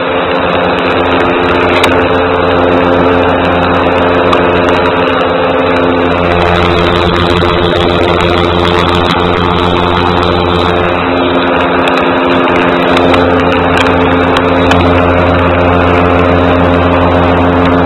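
Paramotor engine and propeller running steadily in flight, a loud, even drone.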